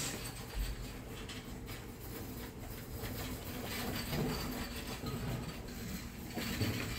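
Steady background noise of a shop interior: a low hum with faint, indistinct sounds now and then.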